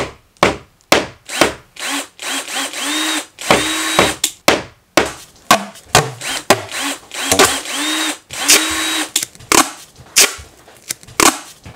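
A small electric motor, like that of a power drill, run in repeated short bursts; on the longer runs it spins up to a steady whine and winds down again.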